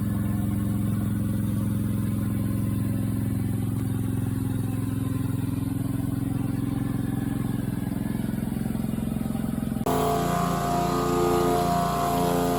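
Gas pressure washer's Honda engine running steadily. About ten seconds in the sound changes abruptly to a brighter, busier mix of engine and hiss.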